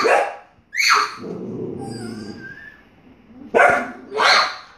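A dog barking at the window: a few sharp, separate barks, two close together near the start and two more near the end, with a lower drawn-out sound in between.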